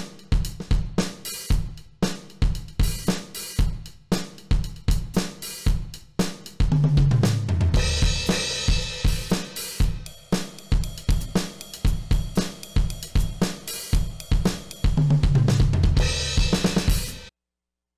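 Donner DED-200 Lite electronic drum kit's sampled sounds played as a groove of bass drum, snare and hi-hat. Twice the groove breaks into a tom fill that steps down in pitch and lands on a crash cymbal. The sound cuts off suddenly near the end.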